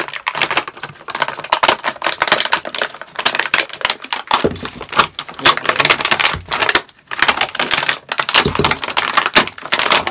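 Clear plastic packaging crackling and crinkling in quick, irregular clicks as red ball ornaments are pulled out of it by hand.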